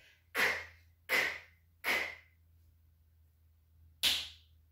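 A woman saying the /k/ sound of the letter C three times, short breathy bursts about three-quarters of a second apart, then a single sharp finger snap about four seconds in.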